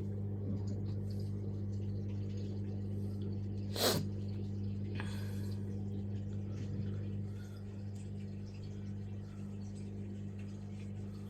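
Newly installed washing machine running its first wash: a steady electric hum, with one sharp click about four seconds in and a slight drop in level a few seconds later.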